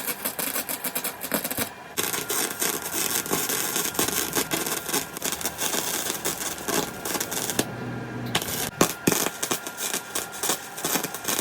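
Flux-core wire welder laying beads on steel box section, with a dense, crackling sputter of the arc. The arc stops briefly about two seconds in and again for about a second near the eight-second mark, then strikes up again.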